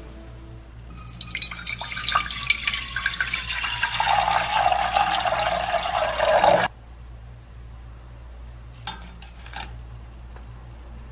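Water poured in a steady stream into an empty stainless steel pot, splashing on the metal with a ringing tone that drops in pitch as the pot fills; the pour cuts off suddenly. Two faint knocks follow as dried anchovies and kelp go into the water.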